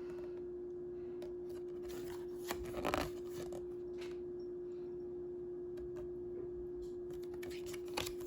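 A steady low hum on one pitch, with a brief rustle of handled packaging about three seconds in and a light tap near the end.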